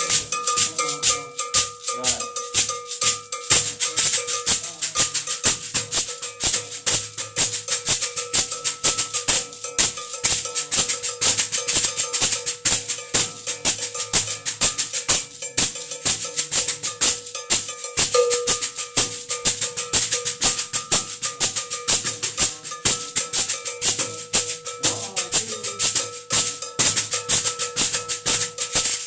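A shekere, a gourd rattle netted with beads, shaken in a fast, steady rhythm over a repeating cowbell pattern whose ring sounds through it.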